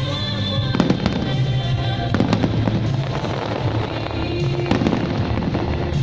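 Fireworks going off in a series of sharp bangs, several loose clusters spread over a few seconds, with music playing underneath throughout.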